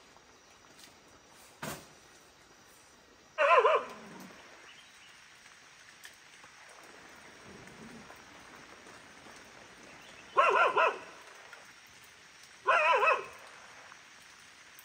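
A dog barking: three loud single barks spaced several seconds apart, the first about three seconds in and two more in the second half.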